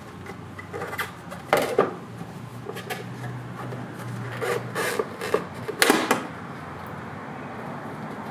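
Hands working the plastic tail light assembly and its fasteners loose: scattered clicks, knocks and scraping, loudest about one and a half seconds in and again around six seconds, then they stop.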